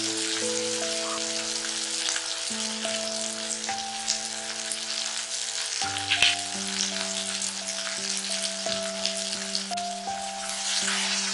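Shallots and garlic sizzling steadily as they fry in oil in a kadai, with a brief sharp clink about six seconds in.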